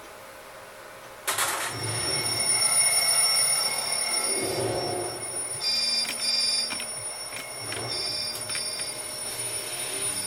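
Mobile phone alarm ringing in a film soundtrack played through room speakers, starting suddenly about a second in, with steady high electronic tones and short repeated beeps.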